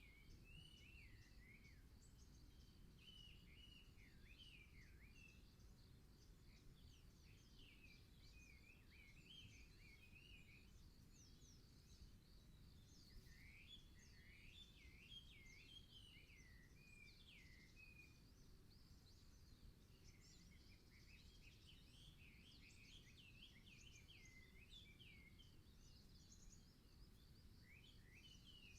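Faint songbirds singing: quick warbling phrases that swoop up and down, coming in bursts of a few seconds with short pauses between, over a steady low background rumble.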